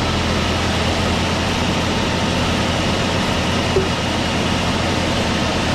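Sawmill machinery running steadily: a low engine-like hum under a constant whirring noise, with a faint brief blip about four seconds in.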